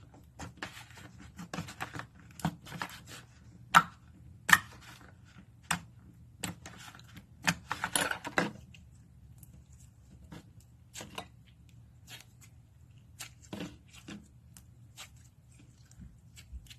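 Irregular sharp crackles and clicks of a crunchy material being pressed and crushed by hand. The loudest come in a dense run about eight seconds in, then thin out to sparse, quieter clicks.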